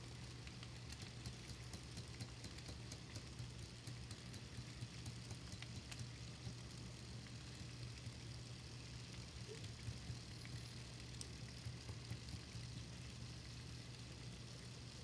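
N-scale model freight train of tank cars rolling along the track: a steady low hum with light, irregular clicking from the wheels on the rails.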